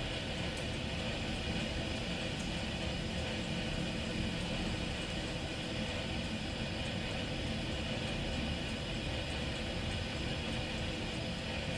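Heavy rain falling, a dense steady hiss with no change in loudness.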